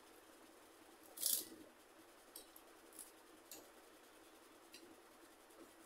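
Fried papad being broken by hand over a steel plate: one short, sharp crackle about a second in, then a few faint crackles and clicks.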